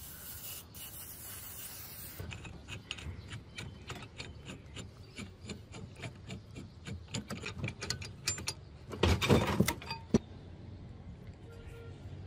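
Aerosol lubricant hissing from a spray can onto the adjusting nut of a rusted pipe wrench for about two seconds. The knurled steel nut is then turned back and forth, giving a run of metallic clicks and grating scrapes as the stiff hook jaw works free, with a louder clatter about nine seconds in.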